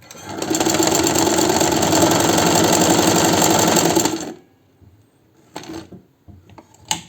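Chaika 143A sewing machine running fast, stitching a short zigzag for about four seconds and then stopping. A couple of brief clicks follow.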